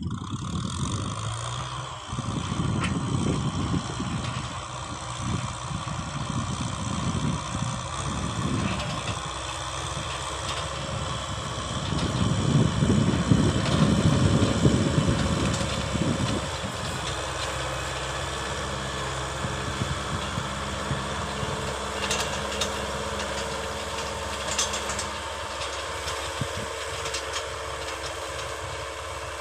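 A farm machine's engine running steadily, growing louder for a few seconds near the middle before settling back.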